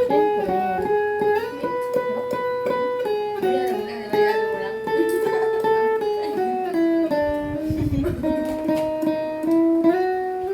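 Thompson guitar being played: picked and strummed strings under a melody of held notes that steps up and down.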